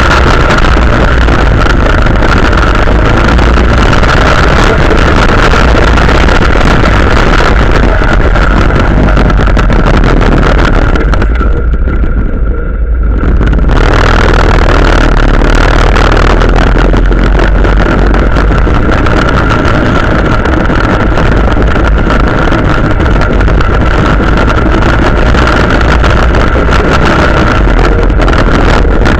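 Quad bike (ATV) engine running hard while riding over sand dunes, loud and rough throughout with a steady whine. About twelve seconds in, the sound briefly dulls and drops for a second or two before returning.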